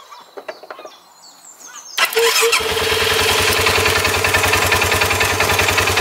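Polaris RZR 570's single-cylinder engine started by bridging the starter solenoid's two terminals with a spanner, bypassing the failed brake light switch. A few light clicks, then about two seconds in the starter turns briefly, the engine catches and settles into a steady idle.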